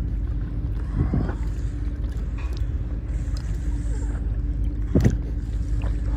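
Water splashing around a kayak on the harbour, twice, about a second in and near five seconds, over steady wind rumble on the microphone and a faint steady hum.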